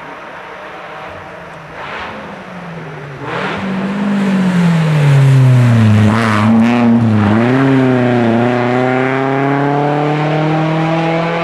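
BMW E36 Compact rally car running at speed as it comes up and passes close. The engine note drops in pitch as it lifts off, with a few sharp cracks along the way. It then climbs again, with a brief dip at a gear change, as the car accelerates away.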